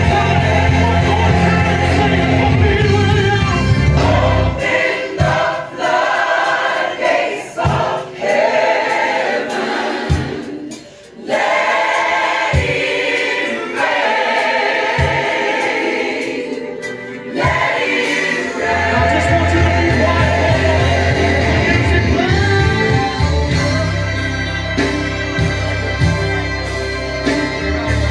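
Recorded gospel music with a choir singing. The bass drops out about five seconds in, the music nearly pauses briefly in the middle, and the full band with bass comes back in after about eighteen seconds.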